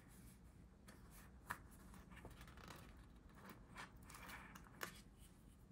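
Faint paper handling: a sheet of letter stickers rustles as stickers are peeled off, with a soft tap about a second and a half in and another near the end.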